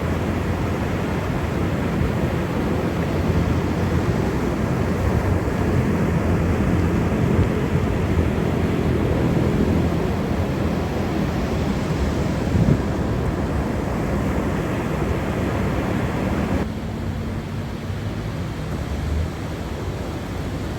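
Ocean surf with wind buffeting the microphone: a steady rushing roar heavy in the low end. Near the end it cuts abruptly to a quieter, duller sound with a low steady hum.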